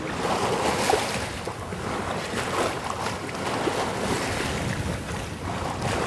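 Wind rushing over the microphone, and waves washing past a sailboat under way, in uneven surges with a louder gust about a second in.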